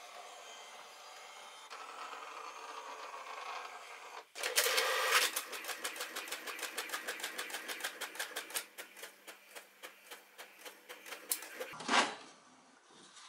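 HP all-in-one printer making a copy: a steady motor whir for about four seconds, then a sudden louder start into a fast, even rattle of about five strokes a second as the print carriage shuttles and the paper steps through. A loud whirr near the end comes as the printed sheet is fed out.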